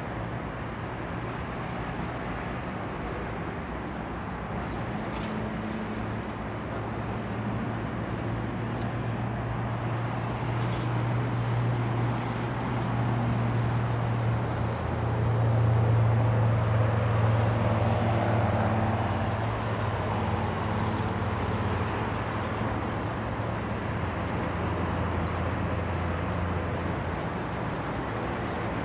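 A steady low engine drone over outdoor traffic noise, growing louder to a peak about halfway through and then easing off.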